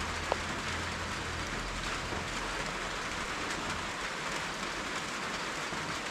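Steady rain falling, an even hiss. A low rumble underneath fades out in the first half, and a single short tick sounds just after the start.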